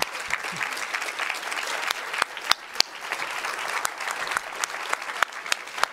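Audience applauding: a steady patter of many hands clapping, with single louder claps standing out here and there.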